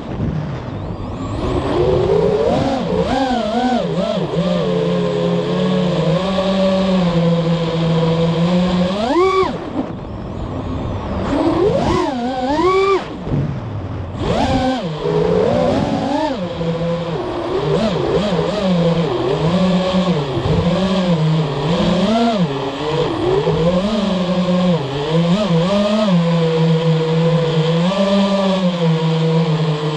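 FPV drone's brushless motors whining, the pitch rising and falling with each change of throttle, with sharp throttle punches about 9 and 12 seconds in.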